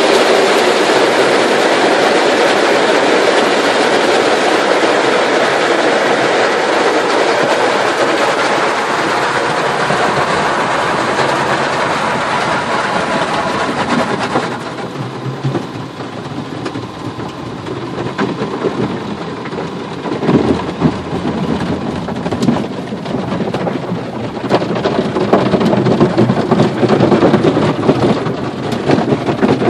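Automatic car wash heard from inside the car going through it. For about the first half there is a steady loud hiss of water spray on the car. About halfway through it changes to an uneven rumble with many thuds and slaps against the body, getting louder toward the end.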